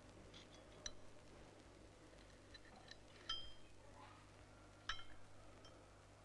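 Porcelain cup clinking lightly against its saucer: a few short, ringing chinks, the loudest a little past three seconds and just before five seconds, over a faint low hum.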